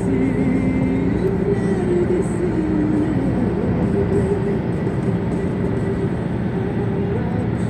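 Steady road and engine noise inside a moving car at road speed, with a faint melody running under it.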